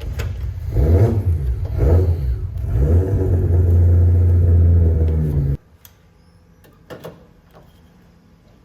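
An engine revving: two quick rev rises, then held at steady revs for a couple of seconds before it cuts off suddenly about five and a half seconds in.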